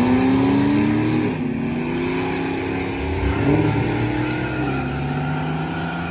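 Dodge Challenger's V8 held at high revs at the end of a burnout, then dropping back about a second in. It revs up briefly again about three seconds in, then settles to a lower, steady run as the car rolls forward.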